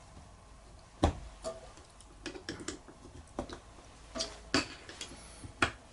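Scattered small metallic clicks and ticks of a Phillips screwdriver working at a screw on a Honda VFR400R carburetor bank, with the sharpest knock about a second in.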